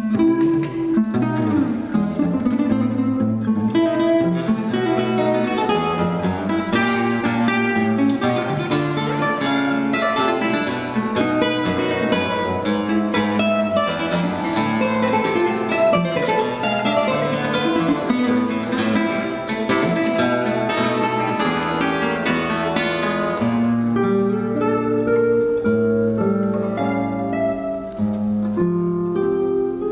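Two classical guitars playing a duet: a dense stream of plucked notes that thins out to fewer, lower, longer notes about three-quarters of the way through.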